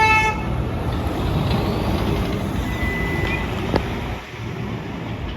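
City street traffic with heavy vehicles running past, opening with a short horn beep. A thin high-pitched whine comes briefly about three seconds in, and a sharp click just before four seconds.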